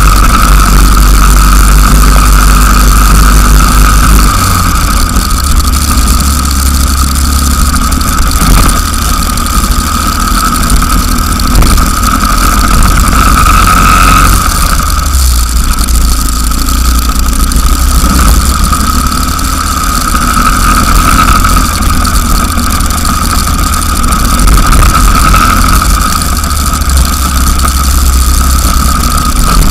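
Racing go-kart engine running at speed, a steady drone, with heavy wind rumble on an onboard camera microphone.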